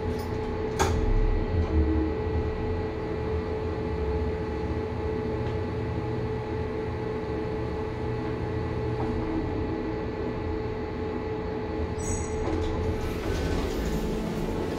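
Two-speed Mitsubishi elevator car travelling: a steady motor hum with a low rumble, a sharp click about a second in, then clicks near the end as the car stops and the doors open.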